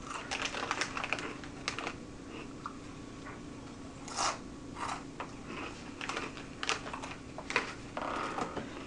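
Crinkly plastic snack bag rustling and veggie chips being crunched while eating: an irregular scatter of short crackles and clicks.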